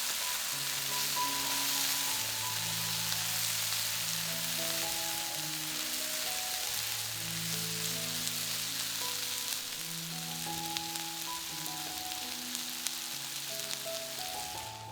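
Food sizzling as it fries in hot oil in a pan, a steady crackling hiss, over soft background music.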